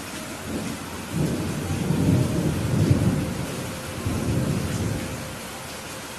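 Steady rain with a low rumble of thunder that builds about a second in, swells twice, and dies away near the end.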